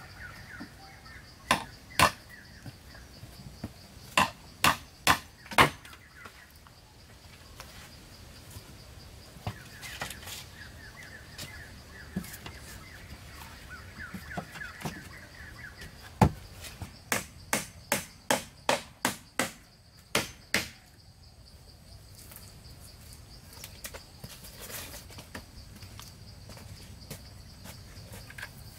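Sharp blows of a hand tool striking wood, in short runs: two blows, then four, then a single heavy blow followed by a quicker run of about nine at two to three a second. A steady high insect drone and faint chirping continue underneath.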